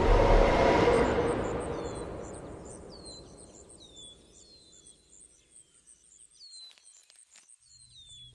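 A loud rumbling rush fades away over the first few seconds, giving way to quiet birds chirping: short, repeated downward-sliding chirps with faint high ticks. A few light clicks come near the end.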